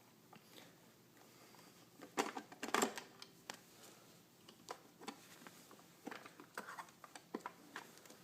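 Scattered small clicks and knocks of hands and a Phillips screwdriver working the plastic battery door on the underside of a robot vacuum, with a louder cluster of knocks about two to three seconds in.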